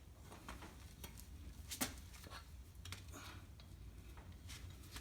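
Faint scattered clicks and taps of clamps and a rubber bandsaw tire being handled on the saw's wheel, with one sharper click a little under two seconds in.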